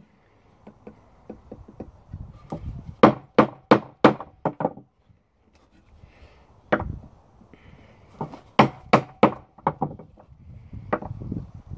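Wooden baton knocking on the spine of a ROOT 2.0 bushcraft knife as it is driven into a round stick, in quick runs of sharp knocks with short pauses between. The blade is being batoned all around the stick to notch it, 'beaver chewing', so that the stick can be broken.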